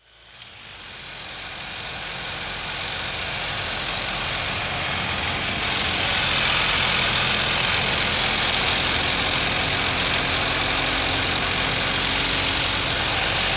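BMW R1250 GS Adventure's boxer-twin engine running at a steady cruise under heavy wind and road noise, fading in from silence over the first few seconds.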